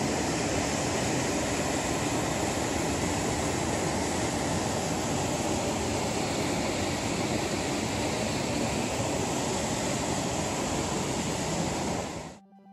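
Steady rushing water, an even roar with no rhythm, cut off abruptly near the end.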